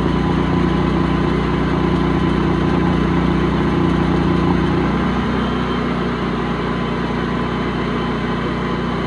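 Kohler 14RCAL natural-gas standby generator engine running steadily under the house load; about five seconds in its note changes slightly. The gas pressure feeding it is marginal, around 5 inches of water column, coming up to just over 6.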